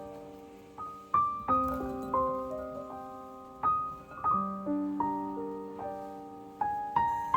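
Background piano music: gentle struck chords and single notes, each ringing out and fading.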